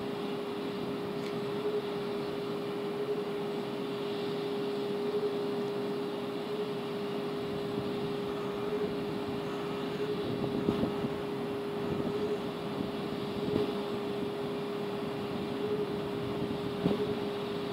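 Railway platform ambience: a steady electric hum at one unchanging pitch over a low rumble, with a few soft knocks in the second half as a train approaches from far off.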